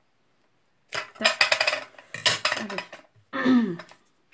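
Metal scissors snipping lace trim and clacking as they are set down: a quick run of sharp clicks starting about a second in.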